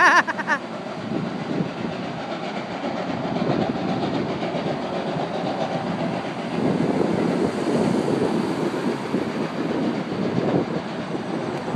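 Steam train running past below, a steady rumbling noise that grows louder about six and a half seconds in.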